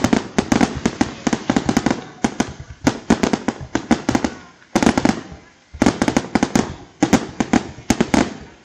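Fireworks display: rapid volleys of sharp bangs and cracks, several a second, with brief lulls about five and six seconds in.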